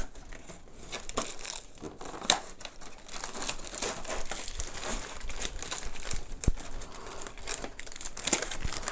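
Clear plastic bag crinkling and cardboard packaging rustling as a bagged cable is handled and pulled out of a cardboard insert: irregular crackling with a few sharp clicks.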